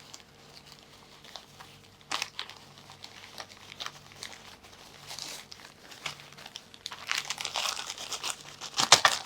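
Plastic bag of acrylic game tokens crinkling and rustling as it is opened and handled, with scattered light crackles that get busier and louder in the last couple of seconds.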